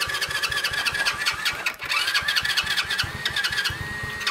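Coolster 125cc ATV's single-cylinder four-stroke engine cranking over on its electric starter: a rapid, even chugging with a wavering whine above it, as the engine is being started.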